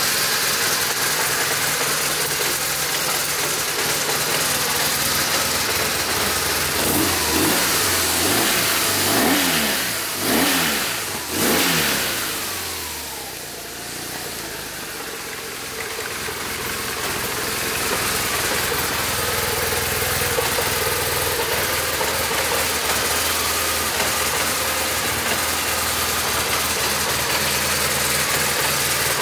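BMW R1200RT's boxer twin engine idling, revved several times in quick succession about a quarter of the way in, then settling back to a steady idle.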